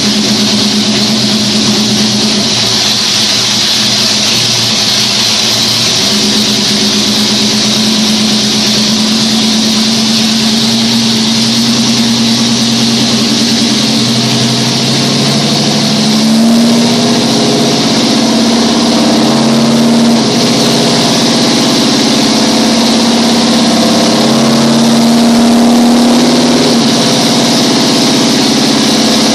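Household plumbing giving off a loud, steady droning hum over a hiss, wavering slightly in pitch now and then.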